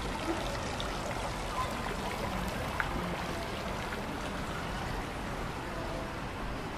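A steady rushing noise, like running water, with a few faint ticks.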